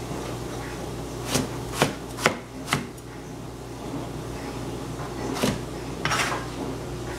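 Kitchen knife chopping through eggplant onto a plastic cutting board: four quick strokes about half a second apart, a pause, then two more.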